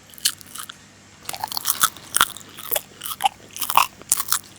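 Close-up crunching and chewing as someone bites into a crispy breadcrumb-coated air-fried tilapia fish finger: a few crunches, a short pause about a second in, then a steady run of crisp crunches.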